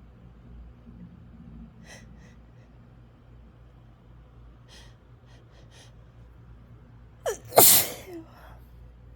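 A woman's strong allergy sneeze near the end, with a quick gasping in-breath just before it. A few faint short breath sounds come earlier as the sneeze builds.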